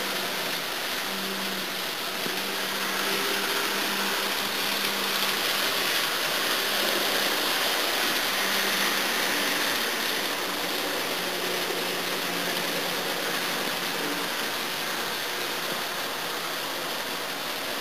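Steady hiss of room noise with a faint low hum and no distinct events.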